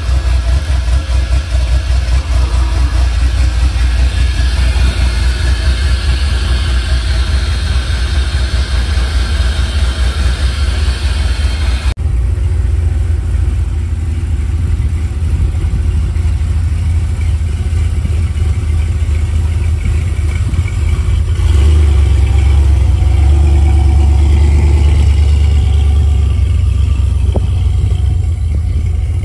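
Rock buggy's engine running under way, with a strong low engine note. The sound changes abruptly about twelve seconds in, and the engine gets louder for several seconds about two-thirds of the way through.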